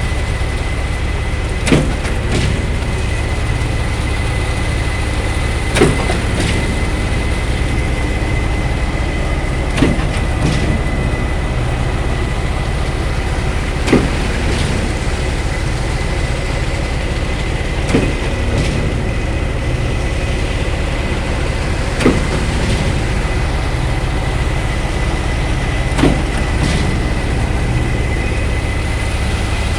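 Truck-mounted concrete pump running under load: a heavy diesel engine runs steadily with a thin high whine over it, while the pumping cylinders change over with a sharp knock about every four seconds.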